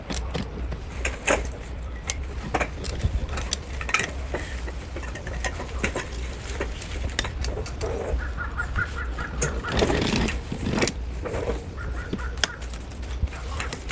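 Folding camping chair being assembled: scattered clicks, knocks and rustles as its poles and fabric are handled, over a steady low rumble. Short high chirps come in around the middle and again near the end.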